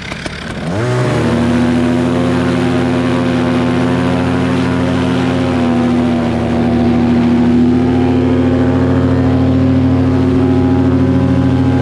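Tandem paramotor trike's engine and propeller revving up about a second in, then running steadily at high power for the takeoff run.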